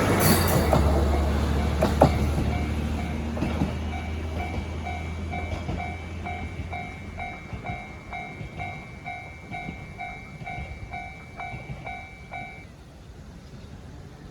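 A diesel train passes over a level crossing and draws away, its engine drone fading out. Over it, the Japanese crossing signal's electronic bell rings at about two strikes a second, then stops suddenly near the end as the crossing clears.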